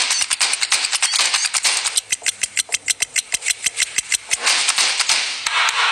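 Intro sound effect: a fast, even rattle of clicks, about nine or ten a second, over a hiss, stopping abruptly near the end.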